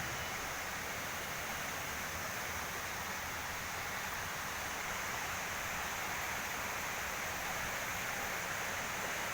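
Steady rushing of a waterfall, an even hiss of falling water with no breaks.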